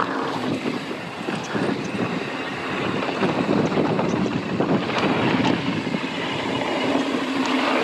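Mountain bike being ridden over dirt singletrack: knobby tires rolling and crunching over the trail, with the bike rattling in scattered sharp ticks and wind on the microphone.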